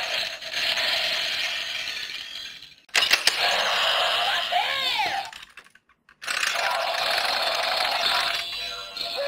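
Electronic sound effects and music from a DX Zenkaiju Gear toy, with a sharp click about three seconds in and swooping pitch glides near the middle, then a short break and steady effects again.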